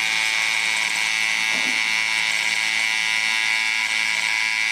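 Battery-powered motor and gear train of a 1960s Estrela RoboCom toy robot running, driving its walking action and the moving pictures on its TV screen: a steady high whine.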